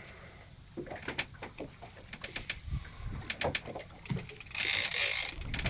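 Big-game fishing reel ticking in runs of sharp ratchet clicks while a tuna is being fought on the line. The clicks come fastest about four seconds in. A louder hissing rush follows.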